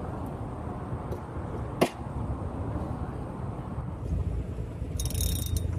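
Steady low rumble, with a single sharp click about two seconds in and a brief high rattle near the end.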